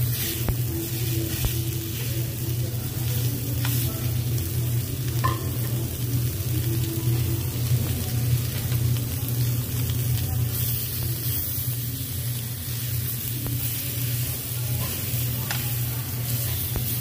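Red-marinated meat sizzling on a hot round slotted Korean BBQ grill plate, a steady crackling hiss, with a few short clicks of metal tongs against the grill. A steady low hum runs underneath.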